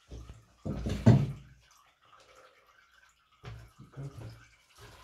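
Water spluttering out of a newly fitted tap in irregular bursts, loudest about a second in, as the line runs off the water standing in it after the supply was turned back on.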